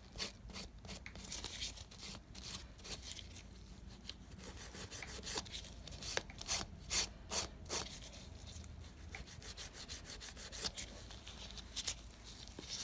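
Hand nail file rasping over a cured acrylic sculptured nail in repeated short strokes, filing off the odorless monomer's dispersion layer and shaping the nail.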